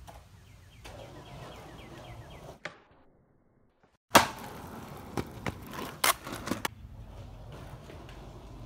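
Skateboard wheels rolling, then a loud smack of the board landing about four seconds in, followed by several sharp clacks of the board and more rolling.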